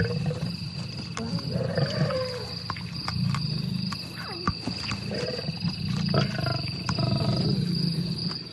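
Lions growling and snarling in repeated low rumbling bouts while feeding together at a kill, with a steady high-pitched tone running underneath.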